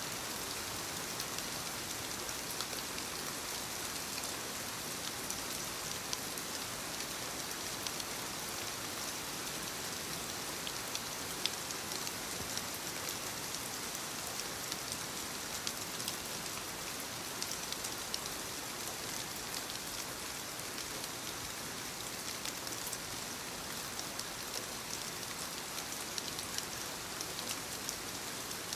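Soft rain falling on leaves: a steady hiss of rainfall with many small raindrop ticks scattered through it.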